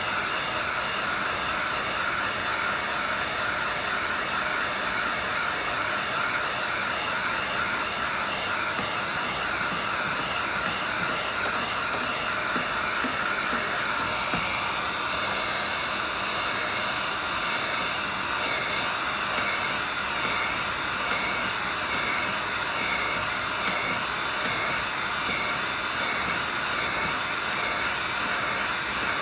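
Handheld electric heat gun running steadily, a fan whine over a rush of hot air, drying a freshly brushed-on urethane coat on a stainless tumbler.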